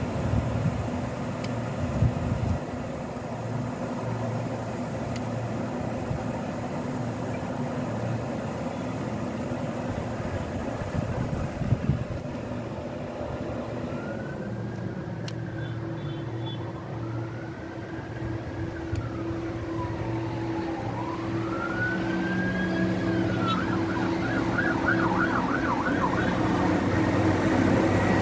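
Low, steady hum of an approaching rail stoneblower's engine, growing louder towards the end. Over it, a road emergency-vehicle siren sounds from about ten seconds in: a slow wail rising and falling, then switching to a fast yelp near the end.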